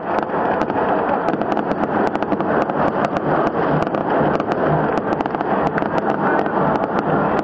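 A stadium crowd of football supporters making a dense, continuous roar, with the rapid crackling pops of fireworks and firecrackers going off in the stands throughout.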